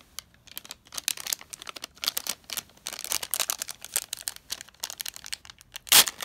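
Crinkly foil blind-bag packet being worked open by a child's hands: dense, rapid crackling, with one loud tear near the end.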